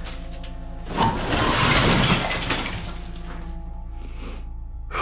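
Demolished floor masonry breaking and crashing down, a dense crash of falling rubble that starts about a second in and dies away over nearly two seconds. Background music with sustained notes plays throughout.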